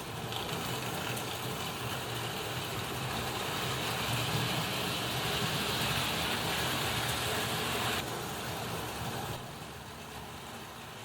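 Model trains running on Hornby Dublo track: steady whirring of the locomotive motors and the rattle of wheels on the rails. The sound grows over the first few seconds, drops suddenly about eight seconds in, and quietens further a second or so later.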